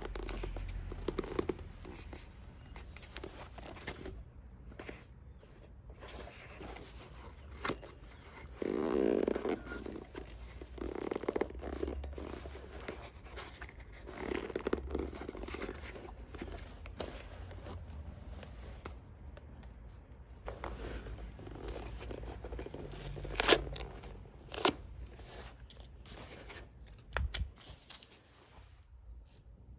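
Hand work on a leather boot during a toe-cap removal: irregular scraping and tearing with scattered sharp clicks, one louder click a little over three quarters of the way through.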